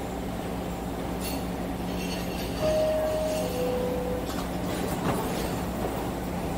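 New York City subway car's two-tone door chime, a higher tone dropping to a lower one, about a third of the way in, over the steady hum of the standing train. The chime is the signal that the doors are closing before departure.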